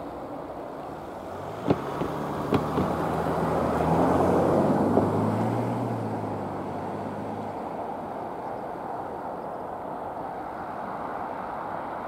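A motor vehicle's engine hum, swelling to its loudest about four to six seconds in and then fading, over a steady outdoor rumble. Two sharp knocks come a little under two seconds in and again about a second later.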